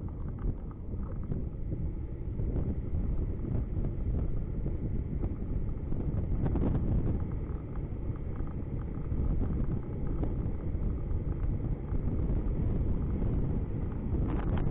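Steady low rumble of a car being driven along a street: engine and tyre noise.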